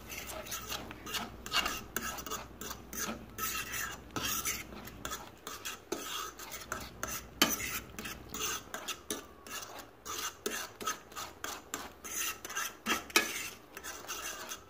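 Metal fork scraping and stirring scrambled eggs around a frying pan: rapid, irregular scraping strokes, with a sharper clink about seven seconds in and another near the end.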